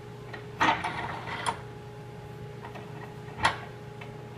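Metal handwheel of a Moxon vise being turned on its threaded screw to clamp a board between the wooden jaws: a run of clicking and rattling about half a second in, then one sharp knock about three and a half seconds in. A steady low hum runs underneath.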